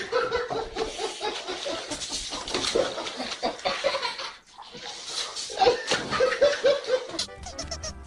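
People laughing, several bursts of it. About seven seconds in it gives way to a cartoon soundtrack from a screen: short high squeaks of cartoon birds over music.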